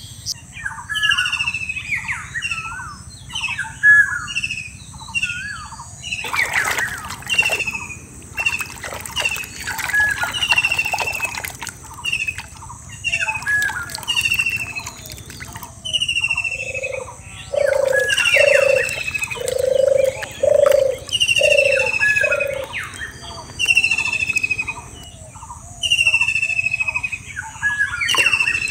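Birds calling: a high whistle that falls in pitch, repeated every second or so, with chirps below it, and about two-thirds of the way through a deep hooting call repeated seven times. About six seconds in there are a few seconds of wet splashing from hands working in muddy water.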